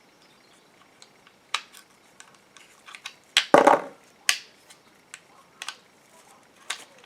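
Parts of a BMW E90 rear door lock actuator being handled and fitted by hand: scattered clicks and knocks, with the loudest cluster around the middle.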